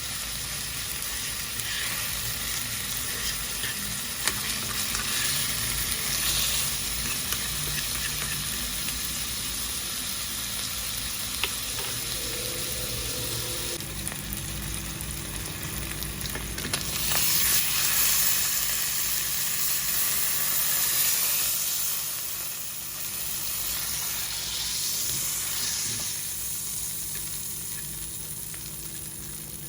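Fatty beef frying in butter, a steady sizzle that swells louder for a few seconds past the middle, with a few light clicks now and then.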